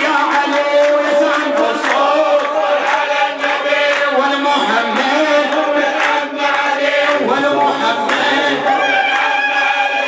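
A man chanting an Arabic religious nasheed, a jalwa for the Prophet's birthday, into a microphone in long, held melodic phrases, with a regular beat of sharp strikes behind the voice.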